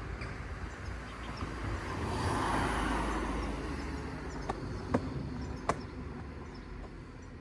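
A car passing by, its road noise swelling and fading about two to three seconds in, followed by a few sharp clicks.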